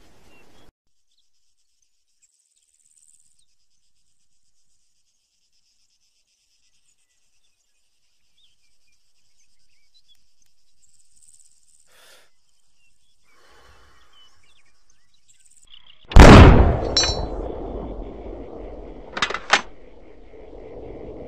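Faint insect chirping over near silence, then about sixteen seconds in a single very loud gunshot whose echo dies away over several seconds. About three seconds later come two short, sharp cracks in quick succession.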